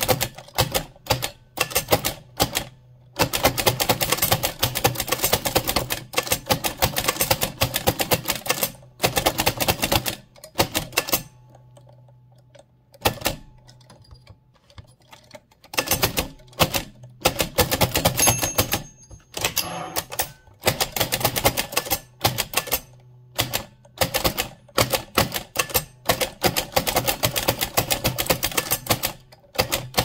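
1925 AEG Mignon 4 index typewriter being typed fast: rapid runs of clacking strokes as the type cylinder strikes the paper, about four characters a second. The typing breaks off for a few seconds about halfway through, then resumes.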